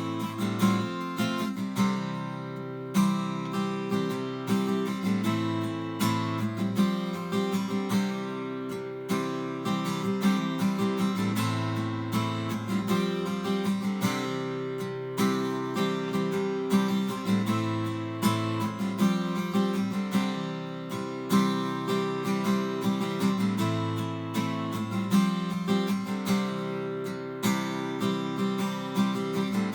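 Acoustic guitar strummed through a steady run of chord changes.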